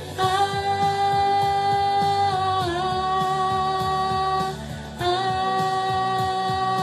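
Solo female voice singing two long held notes over a backing track with a steady beat. There is a short breath between the notes, and the first note dips in pitch partway through.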